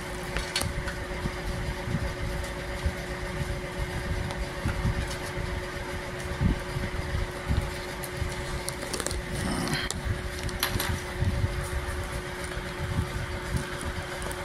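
Steady background machine hum with a fluctuating low rumble, and a few light clicks between about nine and eleven seconds in as iPhone screen parts and their plastic packing tray are handled.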